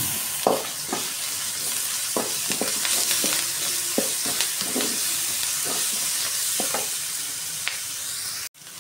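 Onions and ginger-garlic paste sizzling in hot oil in a metal kadai, stirred with a wooden spatula that scrapes and knocks against the pan now and then. The sizzle cuts off suddenly near the end.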